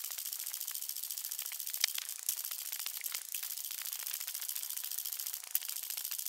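Handling noise from a handheld camera carried at a run: a fast, even, high-pitched rattle of fine clicks, with no footfalls or voice standing out.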